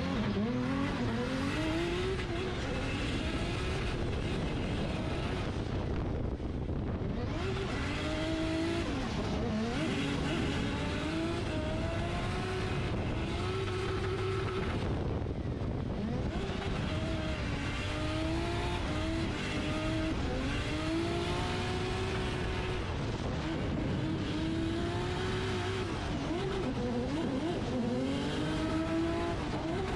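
Drift car's engine at full throttle from the start line, its pitch climbing and then rising and dropping again and again as the car is driven sideways through the corners, over a steady hiss of sliding tyres that eases briefly twice, about six and fifteen seconds in.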